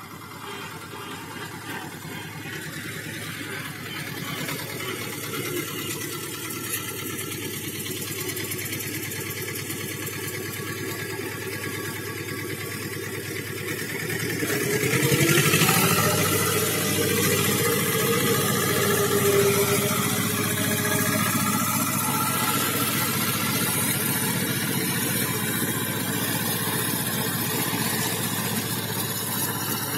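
Vladimirec T-25 tractor's two-cylinder air-cooled diesel running steadily while it drives a flail mulcher with chains through grass. The sound grows gradually louder, jumps up sharply about halfway through, and then holds at that level.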